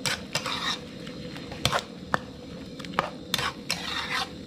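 Metal spatula scraping and clinking against a metal wok while stir-frying a thick coconut-milk mixture of fermented soybean paste, minced pork and chopped shrimp, with a soft sizzle underneath. There are about eight sharp scrapes and knocks at uneven intervals.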